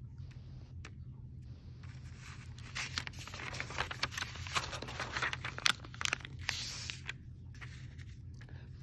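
Irregular scraping and rustling handling noises with small clicks, busiest in the middle, over a steady low hum.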